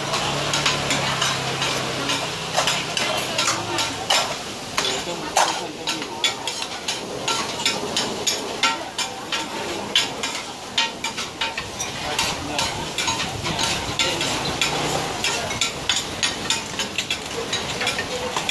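Frying sizzle at a street-food stall's cooking counter, with rapid, irregular clatter and scraping of metal utensils against pots and woks.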